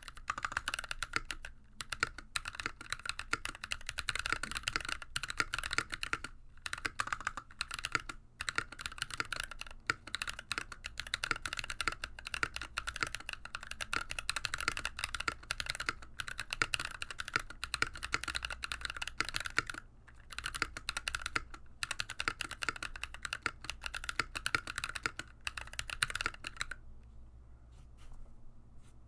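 Fast touch-typing on an NK65v2 Entry Edition mechanical keyboard with a polycarbonate case, lubed Glorious Panda tactile switches and GMK keycaps: a rapid, continuous patter of keystrokes with a few brief pauses, stopping near the end.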